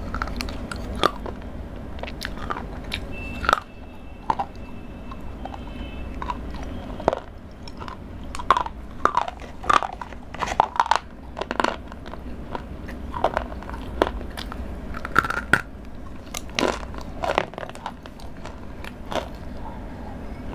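Crunchy food being bitten and chewed close to a clip-on microphone: a string of short, sharp crunches, thickest in the middle of the stretch.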